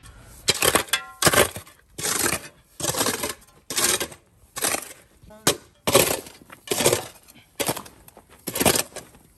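Steel shovel stabbing and scraping into MOT Type 1 crushed-stone sub-base, a gritty stroke about once a second.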